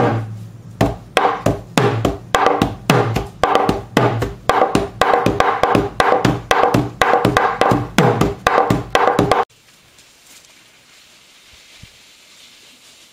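Wooden hand drum played by hand in a lively rhythm of about three ringing strikes a second, stopping abruptly about nine and a half seconds in; faint outdoor background follows.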